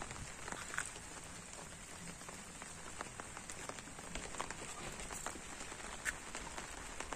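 Light drizzle falling, a faint steady patter with scattered small drop taps on an umbrella overhead.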